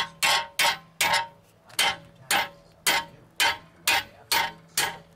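A 3-pound hammer striking steel in a steady run of about a dozen blows, roughly two a second, each with a short metallic ring, driving the front drive axle out of a Mk7 VW GTI's wheel hub.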